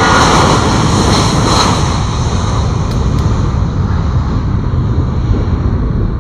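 The four turboprop engines and propellers of a Lockheed Martin C-130J-30 Hercules running loudly: a deep steady rumble, with a brighter whine strongest in the first couple of seconds that then eases.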